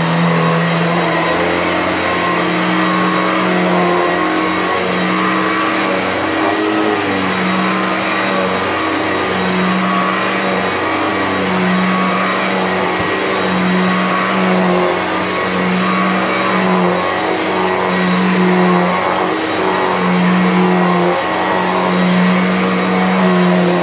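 Electrolux Discovery 2 upright vacuum cleaner, a two-motor machine with a suction motor in the body and a second motor in the power head, running on a rug. Its loud, steady motor hum steps up and down in pitch about once a second.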